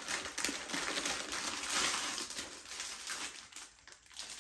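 Clear plastic packaging crinkling and rustling as it is handled and opened around a set of makeup brushes, fading near the end.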